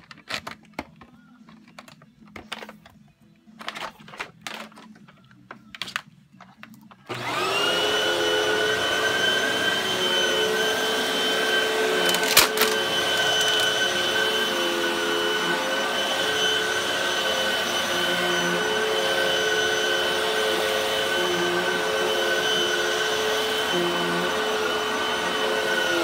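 A few scattered clicks and knocks, then a Hoover vacuum cleaner switches on about seven seconds in and runs steadily with a high whine, with one sharp click a few seconds after it starts.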